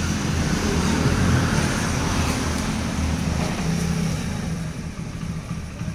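A motor vehicle engine running steadily, easing off slowly toward the end.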